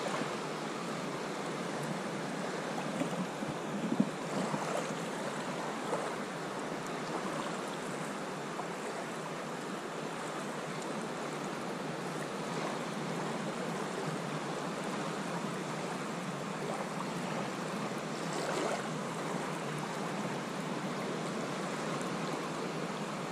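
Small sea waves breaking and washing onto the beach in a steady hiss, with a few brief, slightly louder moments.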